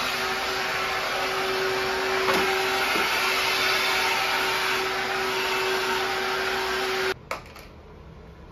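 Cordless stick vacuum running steadily over a hard floor, its motor giving a steady whine, with a light knock a couple of seconds in. The sound cuts off abruptly near the end, followed by a single small click.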